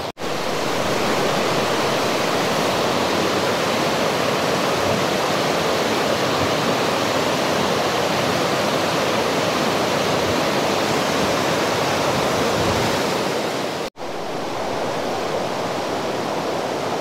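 Steady rush of a fast-flowing river. It cuts off for an instant near the end and comes back a little quieter.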